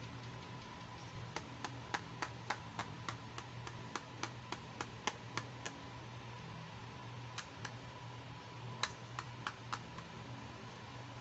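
Light, sharp clicks of hard plastic toy pieces, a pink doll-sized vanity table with its mirror, being handled: a quick run of about four clicks a second, then after a pause a few more.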